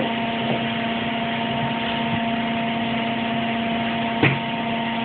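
A small electric motor or fan running with a steady hum, plus a single knock about four seconds in.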